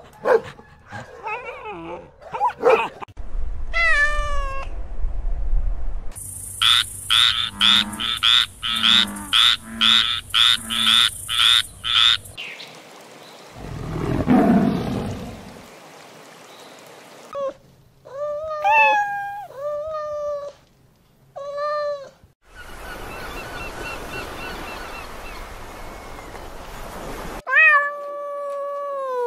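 A run of different animal sounds cut one after another. Short dog yips come first, then about a dozen quick, sharp repeated calls. A tiger's low growl follows about halfway, then a cat meows four times, and once or twice more near the end.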